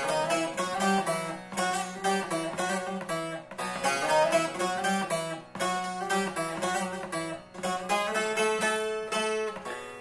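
Long-necked bağlama (saz) playing a Turkish folk tune solo: a quick run of picked notes over a steady low drone.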